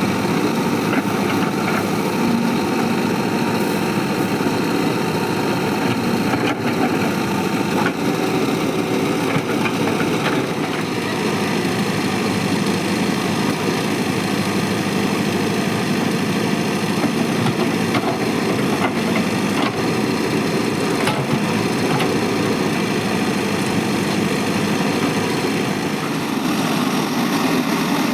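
Diesel engine of a Mahindra backhoe loader running steadily while it works, with a few short knocks scattered through.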